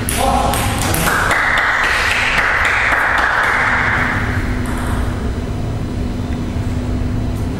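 Table tennis ball making a few sharp clicks and pings against the table and bats, over a steady hiss of hall noise.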